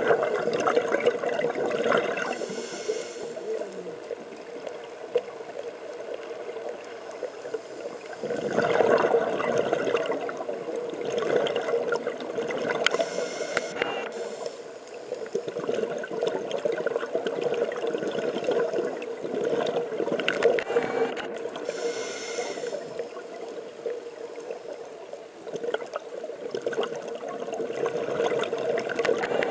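Scuba divers breathing through their regulators underwater: exhaled bubbles rumble and gurgle in surges every few seconds, heard through an underwater camera housing over a steady hum.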